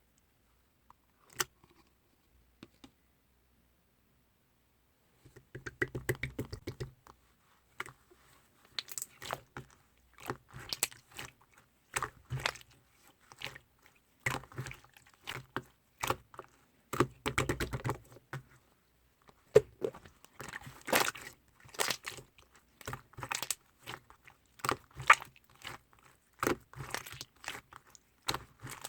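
Two-tone clear slime being squished and pressed by hand, making irregular sticky clicks and pops. Quiet for about the first five seconds apart from a single click, then near-continuous.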